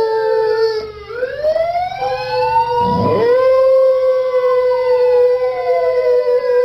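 Several long wailing tones overlapping, each held or gliding slowly up and down in pitch and crossing one another, with a brief rough noise about three seconds in.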